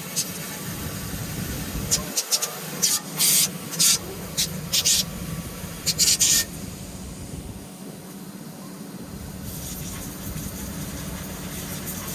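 Short bursts of pressurized water spray, about six in the first six and a half seconds, as cleaning equipment is rinsed out. A steady low machine hum runs underneath.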